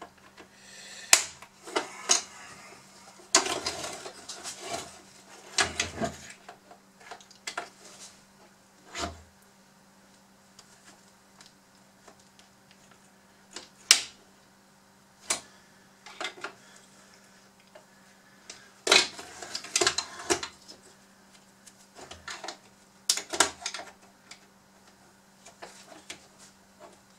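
Hard plastic parts of a Bruder CAT D11 toy bulldozer being handled and pried apart by hand: scattered clicks, knocks and short rattles as the body panels and snap-fit clips are worked loose. The sharpest clicks come about halfway through and in two clusters later on, over a faint steady low hum.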